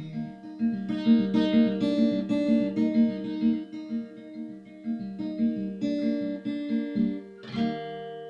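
Acoustic guitar picking single notes in a steady pattern, about three a second, in the song's closing bars. A little before the end comes one final strummed chord, left to ring out and fade.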